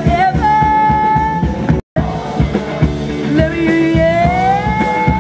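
Live rock band playing: a male singer holds long sung notes over guitar and a regular drum beat, one note gliding upward in the second half. The sound cuts out completely for an instant about two seconds in.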